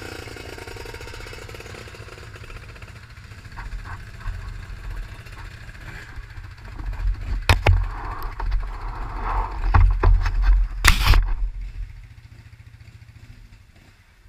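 ATV engines idling with a steady low rumble, broken by loud knocks and rubbing against the mounted camera from about seven to eleven seconds in. The rumble drops away about twelve seconds in.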